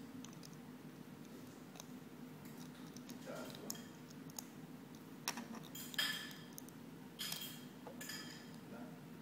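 Plastic Lego pieces clicking and clattering as they are handled and fitted together: a handful of short, sharp clicks, the loudest about six seconds in, over a low steady hum.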